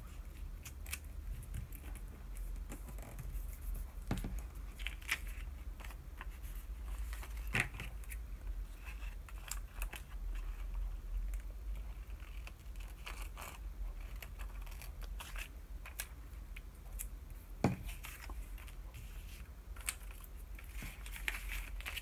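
Scissors snipping through thin vellum paper, mixed with the rustle and crinkle of the sheet being handled. Scattered short clicks run through it, with a few sharper ones, the loudest about three-quarters of the way through.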